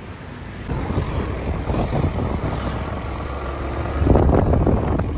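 Rushing wind noise on the microphone of a moving two-wheeler, with the vehicle's engine and road noise underneath. Before it, for under a second, there is quieter road traffic; the rush then comes in suddenly, gusts unevenly and is loudest near the end.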